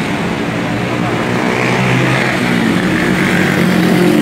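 Road traffic: engines of motorcycles and other motor vehicles running and passing on a busy street, a steady engine drone with shifting pitch.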